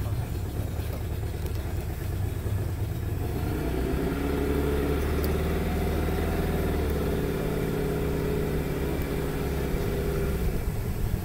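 Outboard motor of a passenger canoe running steadily, a low drone. About three and a half seconds in its pitched engine hum comes up clearer and holds at a steady pitch, easing back near the end.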